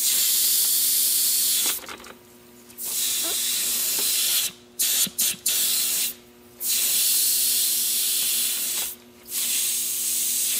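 Air blown by mouth through a transmission-cooler hose into a KYB adjustable shock absorber's hollow piston rod, hissing out of the small holes in the rod, in several long breaths with a few short puffs in the middle. This is a test of the rod's rotary valve, which is turned with pliers to open the passage.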